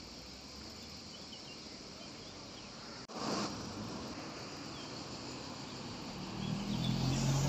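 Faint outdoor ambience: a steady soft hiss with a few faint high chirps. Near the end a low vehicle hum swells as traffic approaches the bridge.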